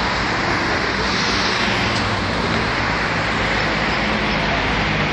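Steady city street traffic noise, a continuous wash of passing cars with a low engine hum.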